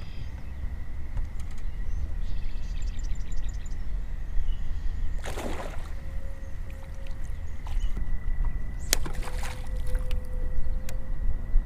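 Low rumble of wind on the microphone over a boat on open water, with a faint steady high whine throughout. A short splash comes about five seconds in, and a click with another brief splash about nine seconds in. A bird chirps a few times about three seconds in.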